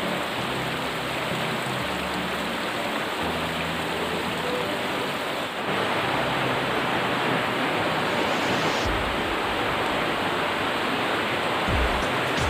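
Steady rush of flowing river water, an even hiss-like noise, a little louder from about six seconds in.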